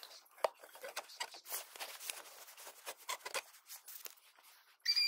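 Rustling and scraping of clothing and handling noise close to the microphone, with irregular small clicks. Near the end a short, high whine starts.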